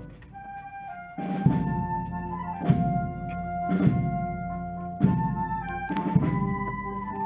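Slow procession march from a band: held brass chords, with a bass drum struck about once a second. It starts quieter for about the first second, then the full band comes in.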